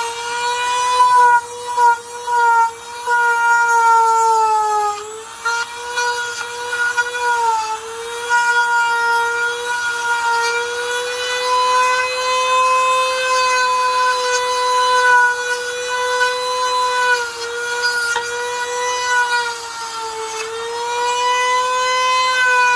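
A high-speed rotary power tool running steadily with a grinding hiss. Its whine sags in pitch a few times, around five seconds in, again a little later and near the end, as it is pressed into the work.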